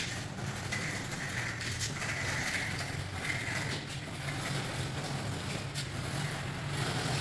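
A steady low hum with faint scattered clicks over it.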